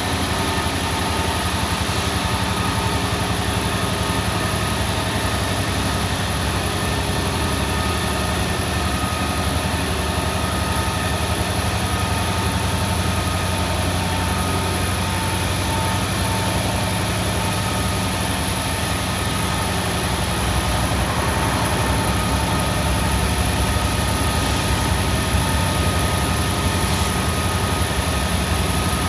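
Diesel-electric freight locomotives running steadily as a train passes, a continuous heavy engine rumble that grows a little louder about twenty seconds in.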